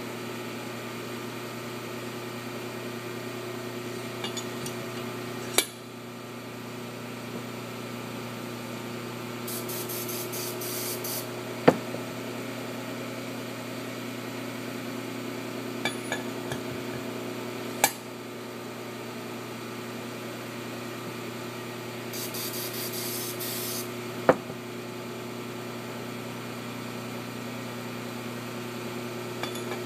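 Hand work on a Cummins 855 diesel cylinder head: sharp metal clicks about every six seconds, and two short hisses, over a steady workshop hum.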